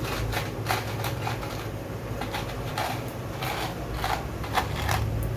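Irregular light metallic clicks and taps of turbocharger parts being handled and fitted as the back plate goes onto the centre hub, over a steady low hum.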